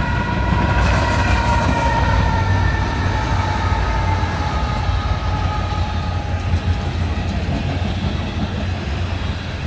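CN diesel locomotives passing close: a deep engine rumble with a high whine that slowly falls in pitch and fades about seven seconds in, then the steady rolling rumble of tank cars going by.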